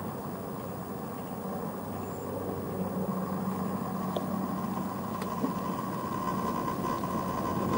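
An approaching vehicle's engine hum, with a steady whine above it, growing gradually louder from about three seconds in, over outdoor street background noise.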